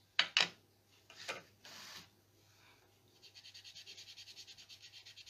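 Two sharp clicks in quick succession, a softer knock and a short hiss. Then, from about three seconds in, quick, even rubbing of something against paper on a stamping platform, about nine strokes a second.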